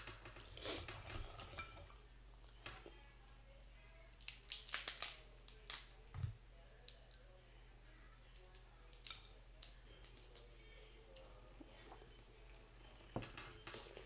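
Boiled snow crab leg shells cracking and snapping as they are broken apart by hand, heard as scattered sharp clicks and crunches, with a denser cluster around four to five seconds in, and chewing between the cracks.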